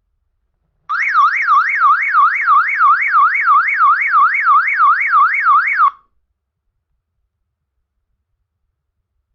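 Electronic siren-style alarm from a Samsung Galaxy Star Plus phone's speaker, warbling up and down about three times a second. It starts about a second in and cuts off suddenly after some five seconds as the phone abruptly shuts down.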